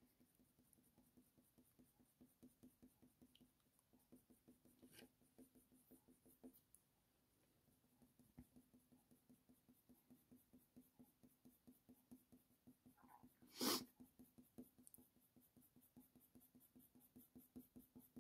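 Near silence with the very faint, evenly repeated scratch of a Faber-Castell Polychromos colour pencil shading in short strokes on hot-press watercolour paper. One brief, sharper sound stands out about 13 seconds in.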